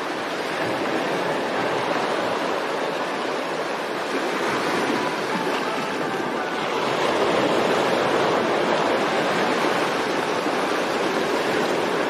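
Steady rushing water, an even noise with no separate sounds in it.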